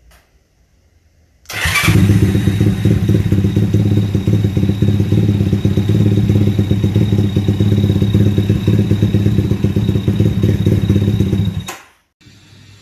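Motorcycle engine starting about a second and a half in, running steadily for about ten seconds, then cutting off suddenly.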